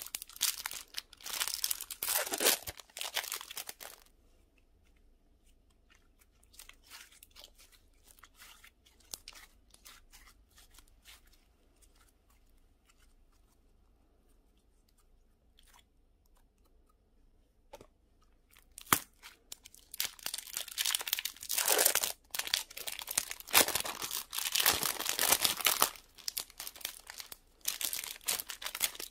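Hands stretching, pulling and squeezing pink slime mixed with glitter, sequins and small beads, with dense sticky crackling and many small clicks. It is loud for the first few seconds, drops to faint scattered clicks, and comes back loud from about twenty seconds in.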